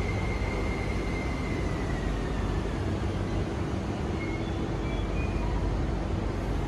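MTR IKK-Train electric multiple unit pulling into the platform and braking to a stop. Steady rolling noise, with a high motor whine that drops slightly in pitch a couple of seconds in.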